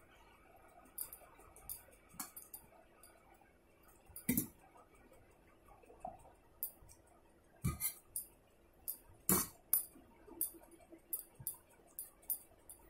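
Stainless-steel bowl and plate clinking as dal is poured over rice and the bowl is set down, with short clicking mouth sounds of chewing. The loudest clinks come about four, eight and nine seconds in.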